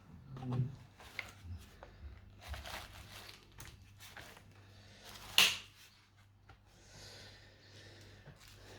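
Small clicks and rustles of hands handling laptop parts, with one sharp plastic-or-metal click about five and a half seconds in, over a steady low hum.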